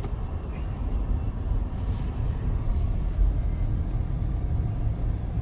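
A vehicle's engine running steadily, a low rumble under a continuous hiss of noise.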